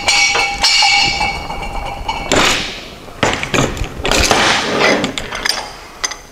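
Hand crimp tool being worked by its long lever handle, pressing a press-fitting sleeve down onto multilayer composite air tubing. For about the first two seconds there is a steady high metallic ringing, then several short rasping strokes follow as the handle is pumped and the crimp is made.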